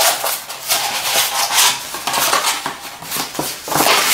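A sheet of paper being crumpled and scrunched into a ball by hand, giving irregular crackling and rustling.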